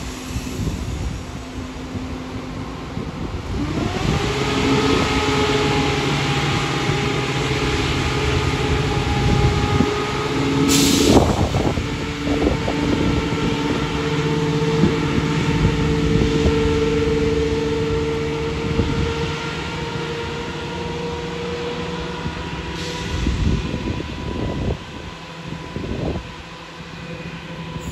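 East Midlands Railway Class 170 Turbostar diesel multiple unit pulling out of the station: its diesel engines rev up about four seconds in and run under power, with a short sharp hiss around eleven seconds, and the engine note fades as the unit draws away.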